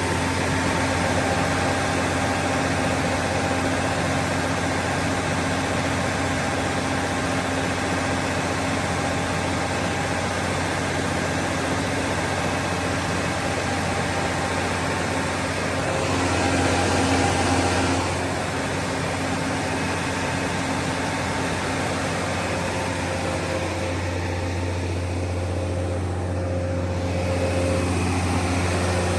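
600kW Generac diesel generator set running at a steady speed, a constant low hum. It swells louder for about two seconds in the middle.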